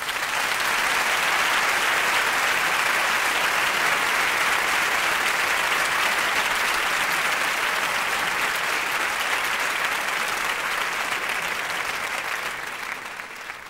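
Concert audience applauding at the end of a song, a steady dense clapping that dies away near the end.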